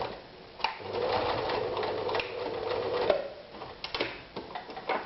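Privileg Super Nutzstich 314 sewing machine stitching through thick belt leather. It pauses for a moment at the start, runs steadily for about two and a half seconds, then stops, followed by a few sharp clicks.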